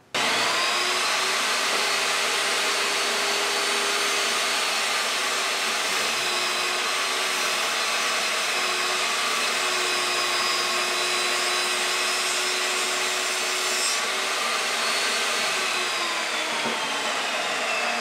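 Chicago Electric benchtop table saw with a 10-inch blade starting up and running, its motor whine rising at the start and then steady while a small block of wood is cut. Near the end the whine falls in pitch as the saw winds down.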